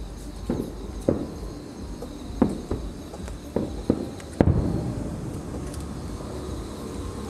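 Aerial fireworks shells bursting: a string of irregular bangs, the loudest about four and a half seconds in, trailing off in a rumbling echo.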